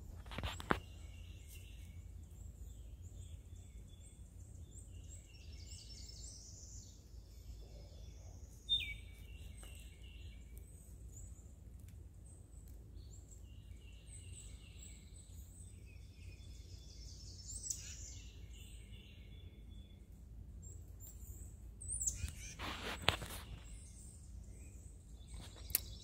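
Woodland songbirds singing, with short phrases recurring every few seconds over a low steady background hum. A brief burst of noise comes near the end.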